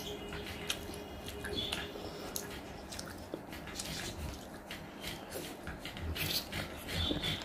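Chewing and wet mouth sounds of a person eating rice and chicken curry by hand: many short lip smacks and clicks, with the squelch of fingers mixing rice into gravy. Louder smacks come near the end, as fingers are licked.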